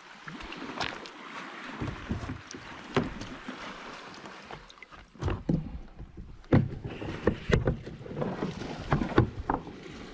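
Fishing kayak moving on the water: splashing and water noise with irregular knocks, several sharp ones in the second half.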